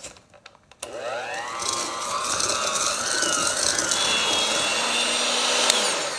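Electric hand mixer starting about a second in and running, its motor whine wavering in pitch as the beaters cream butter and sugar in a stainless steel bowl. It switches off near the end and winds down.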